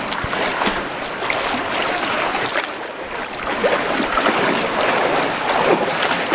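Water splashing and churning close by as people wade and swim through a shallow canyon river, over a steady rush of moving water.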